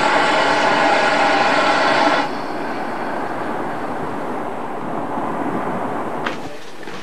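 Steam tank locomotive's whistle blown in one long, steady blast that cuts off about two seconds in, followed by the steady sound of the train running, with a sharp click near the end.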